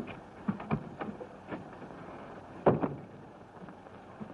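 A few irregular knocks and thumps over the steady hiss of an early-1930s film soundtrack, the loudest about two and a half seconds in.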